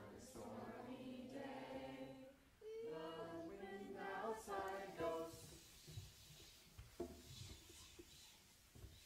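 A group of voices singing softly together in two long phrases, then fading to a quieter stretch with a few faint taps on the hand drums.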